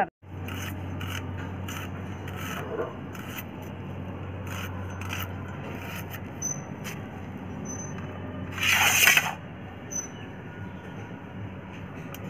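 Red onion being sliced on a boti, a fixed upright curved blade: a series of short scraping cuts, with one louder rasping scrape lasting under a second about nine seconds in, over a steady low hum.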